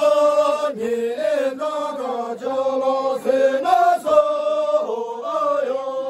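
A group of men and women singing a chanted folk song in unison, with long held notes that step up and down in pitch.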